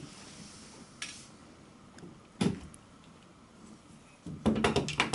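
Knocks and clatter from a steamer trunk being handled: a few separate knocks, the loudest about two and a half seconds in, then a quick run of clicks and knocks near the end.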